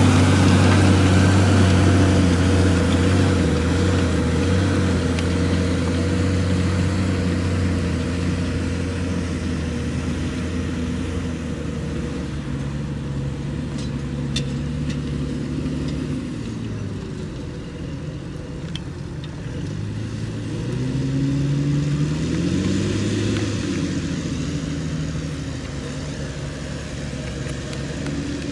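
New Holland T7.210 tractor engine running under load while ploughing, growing fainter over the first half. Past the middle its note drops, then rises again.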